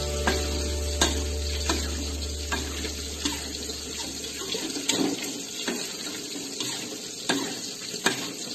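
Sweet-and-sour sauce bubbling and sizzling in a metal wok while a spatula stirs it, knocking and scraping against the pan about once a second.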